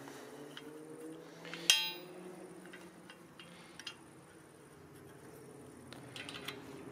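A single sharp metallic clink with a short ring about 1.7 s in, then a few light clicks, as steel parts of a chainsaw-mill guide carriage and rail are handled and adjusted. A faint steady low hum runs underneath.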